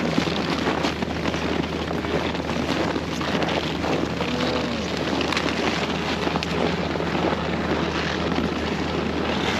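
Wind rushing over the microphone, with a steady low engine hum underneath.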